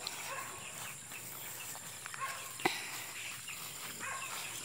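Quiet rural outdoor background: a steady high insect drone with a few faint short calls, and one sharp tap a little past halfway.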